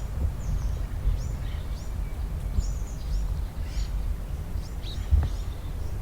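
Small birds chirping outdoors: many short, high calls scattered throughout, over a steady low rumble of wind on the microphone.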